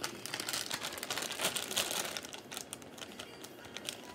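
Plastic zip-top bag crinkling and rustling as it is opened and handled, a dense run of small crackles.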